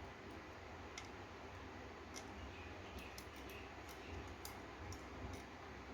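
Faint, irregular small clicks and ticks of a screwdriver driving the cooler screws back into a graphics card, tightened just to firm tension.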